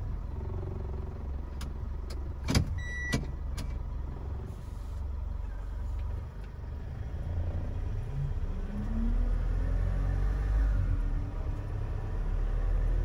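Turbo diesel engine of a Fuso Canter light truck heard from inside the cab, running low and steady, then revving up as the truck accelerates from about eight seconds in and getting louder. A couple of sharp clicks and a short beep come about two and a half seconds in.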